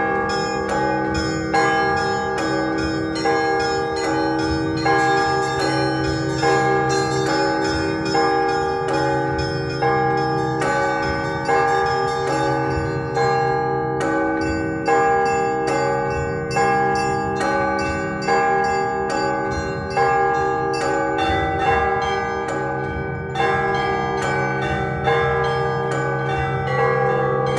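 Russian Orthodox church bells rung in a festive peal (prazdnichny zvon): small bells struck in a rapid, steady rhythm over repeating chimes of middle bells, with a heavier bell stroke about every second and a half.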